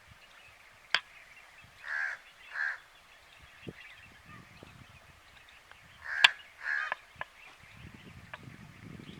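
A bird calling outdoors: two short harsh calls about two seconds in, and two more a little after six seconds. A few sharp clicks fall between them, the loudest just as the second pair begins.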